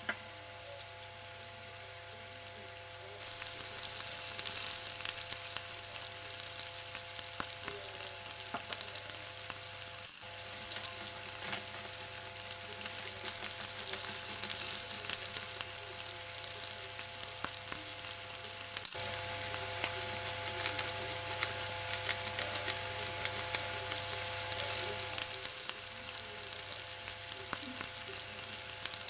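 Shredded cabbage sizzling and crackling as it fries in oil in a frying pan, growing louder about three seconds in, over a steady low hum. Near the end a spatula stirs it.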